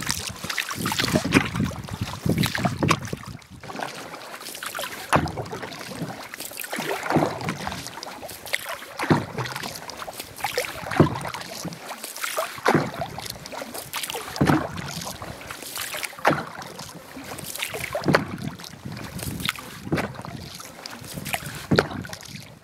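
Canoe paddling: a wooden paddle stroking through calm lake water, each stroke a swish and gurgle of water, about one every two seconds.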